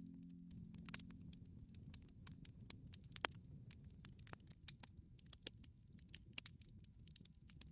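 Campfire crackling softly: irregular sharp pops and snaps of burning wood over a faint low rumble.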